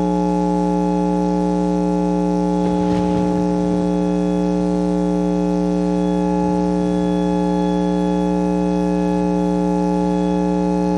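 Steady electronic buzzing drone, a low hum with a stack of overtones, holding one pitch and one level throughout. It is the background bed of a mock Emergency Alert System broadcast, heard here with no voice over it.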